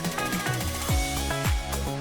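Background music with a steady beat: electronic-style bass drum hits and hi-hat over sustained synth tones.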